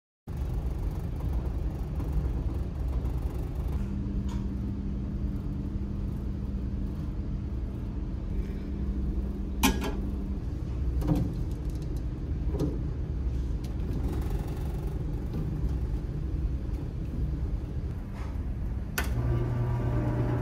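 Steady low rumble of the ship's machinery, with a few clicks and knocks as a plastic cup is set on the drip tray of an automatic orange juicer. Near the end a switch clicks and the juicer's motor starts with a strong low hum.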